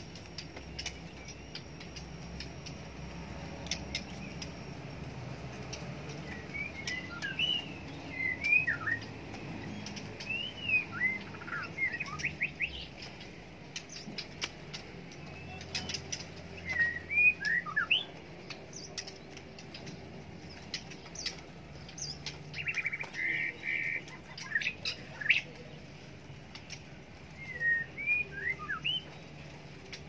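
Caged white-rumped shamas (murai batu) calling in about five short bursts of quick whistled chirps that slide up and down, with scattered sharp clicks and taps between them.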